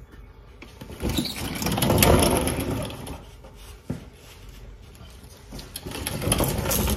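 Ratchet wrench clicking in two spells as the oil drain plug is run back into the oil pan.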